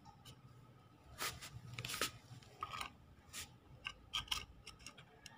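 Faint scattered rubbing, scratching and clicking handling noises close to the microphone, a string of short strokes with the loudest about one and two seconds in.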